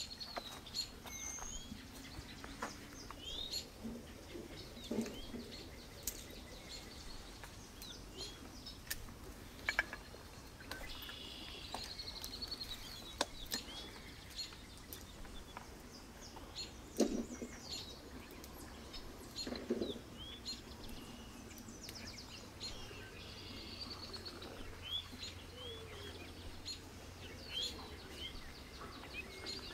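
Small birds chirping on and off in short, high calls, with clicks and rustles of rose-bush twigs being handled as rose hips are picked, and a few dull knocks.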